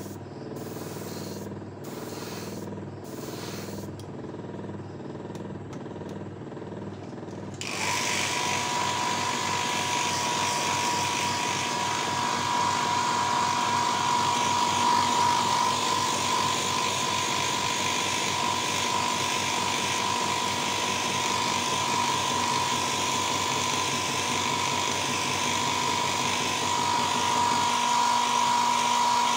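Airbrush compressor motor humming while the airbrush sprays paint onto a fishing lure in short spurts. About eight seconds in, a louder steady rush of air with a high whine starts and holds.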